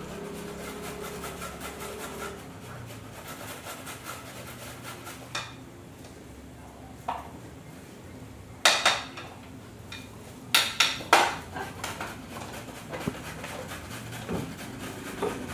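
Carrot being grated on a metal box grater: a quick even run of rasping strokes for the first few seconds. Then several sharp knocks and clatters, loudest near the middle, as the grater and dishes are knocked and set down on the counter.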